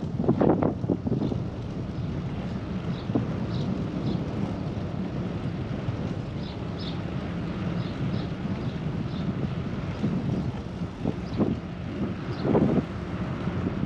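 Wind buffeting the microphone during a bicycle ride, over a steady low rumble. There are gusts at the start and again near the end, with short high chirps scattered throughout.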